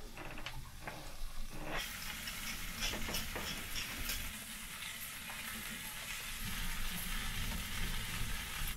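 Sliced raw potatoes are tipped off a plastic cutting board into a pan of frying onions with a few scrapes and clicks. About two seconds in, the pan settles into a steady frying sizzle with fine crackles.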